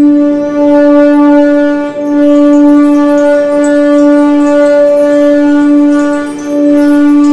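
Conch shell (shankh) blown in long, steady held notes at one unchanging pitch, with a short break about two seconds in and a dip near the end.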